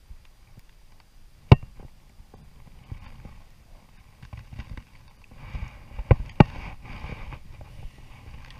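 Handling noise from unhooking a salmon in a landing net: a few sharp knocks, one about a second and a half in and a quick pair about six seconds in, over low rumbling and rustling.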